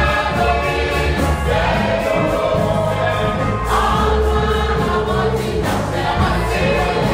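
Church choir singing a gospel song, voices together in full song throughout.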